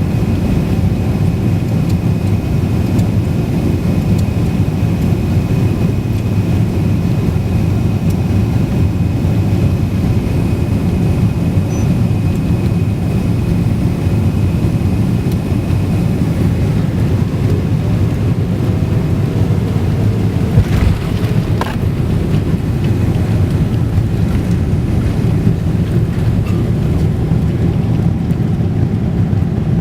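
Airliner cabin noise: a steady, loud low rumble of the engines and airflow, with a thin high tone that fades out just past halfway. About two-thirds of the way in come two brief thuds about a second apart.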